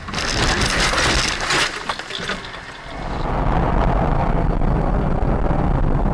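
Car crash heard from inside the car through a dashcam: about three seconds of crunching and rattling with sharp clinks like breaking glass and debris, fading out. It then gives way abruptly to a steady low rumble of engine and road noise inside a moving car.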